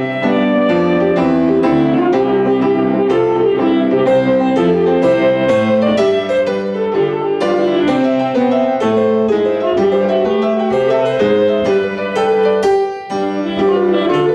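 Grand piano playing a continuous flowing piece of many quick notes, with a brief lull about a second before the end.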